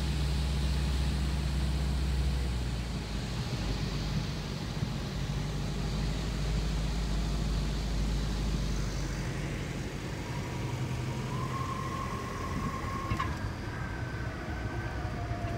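A single-engine Cessna's piston engine and propeller running at low power, with wind and cabin noise, as the plane comes down onto the runway and rolls out; the engine drone eases off partway through. About two-thirds of the way in, a thin steady whine comes in for a few seconds.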